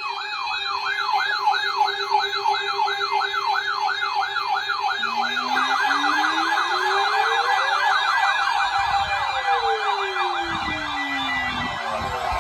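Electronic siren yelping, its pitch sweeping quickly up and down about three times a second and speeding up about halfway through. A second, slow wail rises and falls beneath it in the second half.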